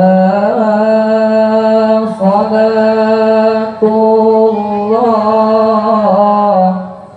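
A young man reciting the Quran in the melodic tilawah style, amplified through a microphone. He holds long notes and ornaments them with rising and falling turns, breaks briefly about two and four seconds in, and trails off into a pause for breath near the end.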